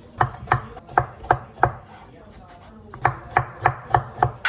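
Knife chopping on a cutting board: a run of about five strokes, roughly three a second, a pause of over a second, then another run of about five.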